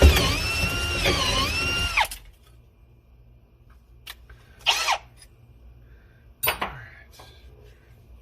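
Power drill boring into a seized ignition lock cylinder, its motor whining and dropping in pitch twice as the bit bites and labours, then stopping about two seconds in. A brief squeak and a click follow later.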